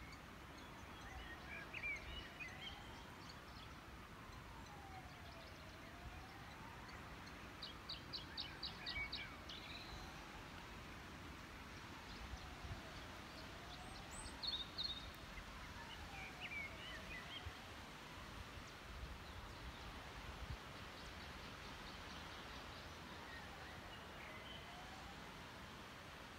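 Faint outdoor ambience of a forested hillside: a steady hush with small birds chirping in short scattered bursts, and a quick run of about eight rapid notes some eight seconds in.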